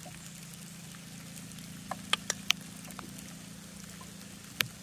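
A carving knife's blade biting into a thin wooden stick while an L7 notch is cut, giving a few short, sharp clicks about two seconds in and once more near the end. A steady low hum runs underneath.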